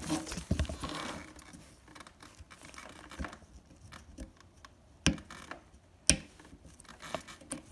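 Hands working the plastic fuel-pump plug of a motorcycle, with rustling and scratching of the fitting being handled, then two sharp clicks about a second apart near the end as the plug's catch is worked to release it.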